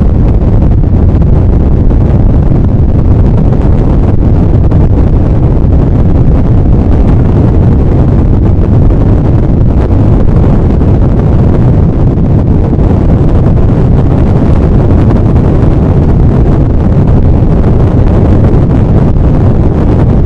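Imitation rocket-launch sound effect: a loud, steady, deep rumbling roar of rocket exhaust noise, heaviest in the bass and unchanging in pitch.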